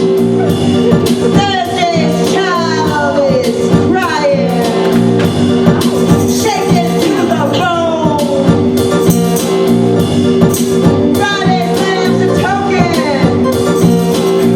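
Live band music with a steady beat and sustained chords, over which a melody line slides downward in repeated phrases.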